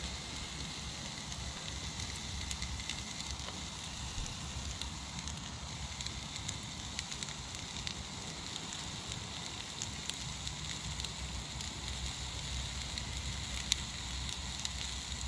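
Beef burger patties sizzling on a cast iron griddle over a small gas stove: a steady hiss and fine crackle with scattered small pops.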